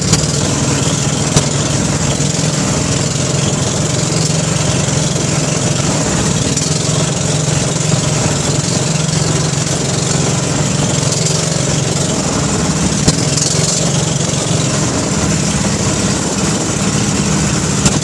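Outrigger boat's engine running steadily under way, a constant hum, with water rushing and splashing along the outrigger and a few brief sharp knocks.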